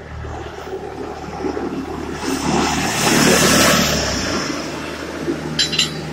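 A motor vehicle's engine running, its rumble and road noise swelling about two seconds in and fading after about four seconds, with two sharp clicks near the end.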